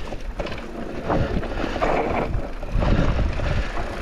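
Focus SAM2 enduro mountain bike riding down a dry, rocky singletrack: tyres rolling over loose stones and rock, with the bike rattling and knocking over the rough ground. A continuous rumble with uneven surges, loudest around three seconds in.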